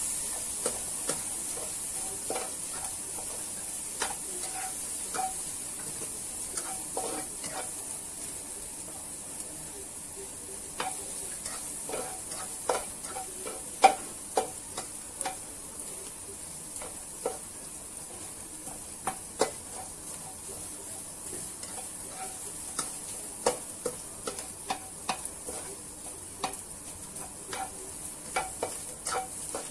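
Chopped dried scallops frying in a wok-style pan with a steady sizzle, while a spatula stirs them, scraping and tapping irregularly against the pan, with one sharper knock about halfway through.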